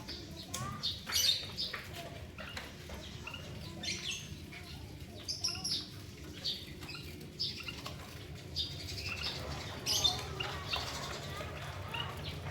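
Small caged finches, a female canary and a male white-headed munia, giving short high chirps, with wing flaps and sharp little taps as the birds move about the cage.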